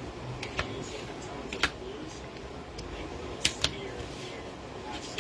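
Trading cards being handled and flipped through, with a handful of sharp, irregular clicks and snaps as the cards are pulled and slapped against the stack.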